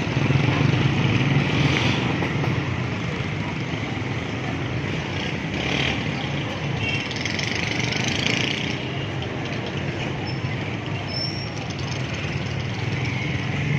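Busy street traffic: a steady din of motorcycles and cars running past.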